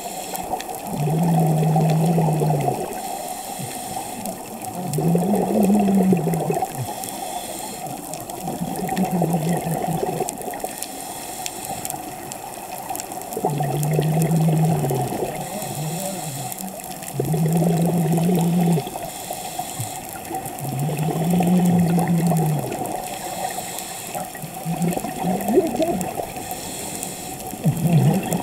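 Scuba diver breathing through a regulator underwater: a low hum with a rush of bubbling noise that comes back about every three to four seconds.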